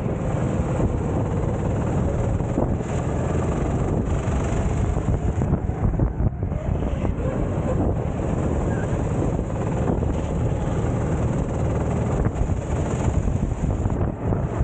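Sodi racing kart's engine running at race speed, with heavy wind noise on the onboard microphone.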